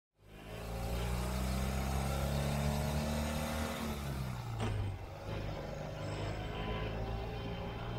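Ural sidecar motorcycle's air-cooled flat-twin engine pulling away and accelerating, its revs climbing. About halfway there is a click and the revs drop at a gear change, then it runs on steadily at cruising speed with road noise.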